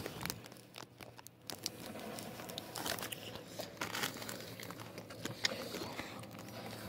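Paper burger wrapper and paper bag crinkling and rustling in irregular crackles as a Whopper is unwrapped and handled.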